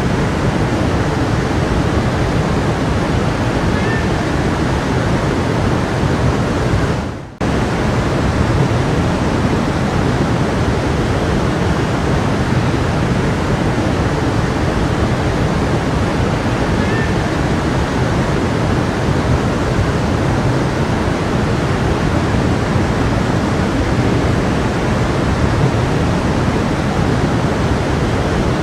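Stream water rushing steadily in a dense, even wash, with a brief dropout about seven seconds in where it fades away and cuts straight back in.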